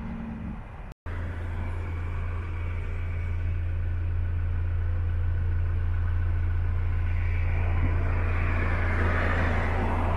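Heavy truck's diesel engine running with a steady low drone, after a cut about a second in; a hiss of rushing noise builds over the last few seconds, as from the truck drawing closer.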